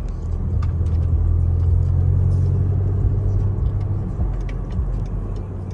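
BMW X6M's twin-turbo V8 running, heard from inside the cabin as a steady low drone that swells about a second in and eases off toward the end.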